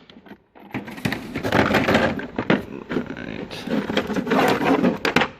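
Tools being handled in a metal toolbox drawer: a steady clatter and rattle of metal tools and cases, with many sharp clicks. It starts about a second in and stops just before the end.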